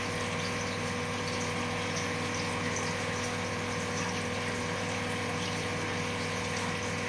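Aquarium pump and aerator humming steadily, with an air stone bubbling and water splashing in the tank as the water is aerated.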